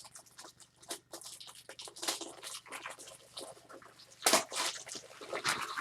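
Irregular rustling and light clicking from trading cards and plastic card holders being handled, with a louder rustle about four seconds in.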